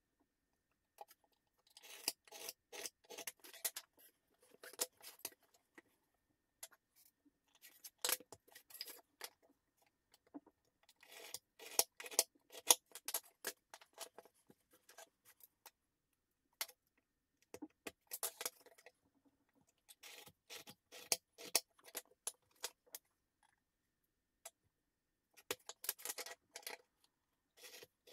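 Pencil scratching as lines are marked on beech boards against a metal protractor and steel ruler, with the tools and boards clicking and sliding on a table. The sounds come in bursts a few seconds long with silent gaps between them.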